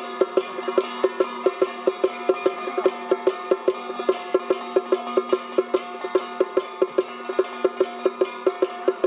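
Taiwanese temple-troupe percussion playing a fast, even beat of about five strikes a second over a steady ringing tone.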